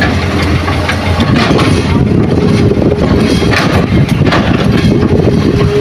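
Diesel engines of a hydraulic excavator and a dump truck running steadily as the excavator works, with a steady whine that cuts out and returns and several short knocks.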